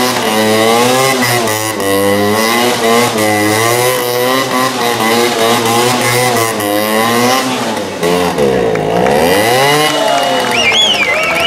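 Famel Zundapp 50cc two-stroke moped engine revving up and down as it is ridden through stunts, its pitch wavering constantly, dropping low about eight seconds in and climbing back up. A few short high chirps sound near the end.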